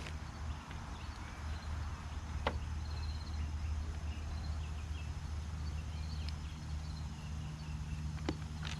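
Outdoor background with a steady low hum, faint bird chirps and a few sharp clicks, the loudest click right at the start.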